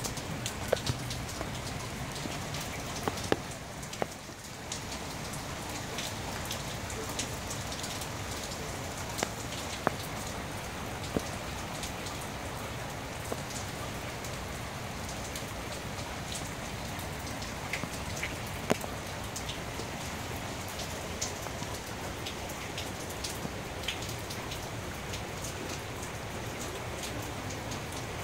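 Steady rain falling on a wet street and parked cars, with scattered sharp taps of single drops landing close by.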